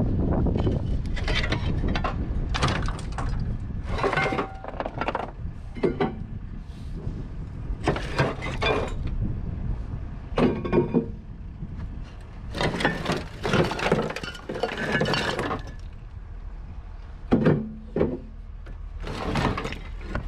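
Loose scrap metal being pulled off a pickup's load and tossed: repeated bursts of clanking and rattling, a dozen or so, every second or two.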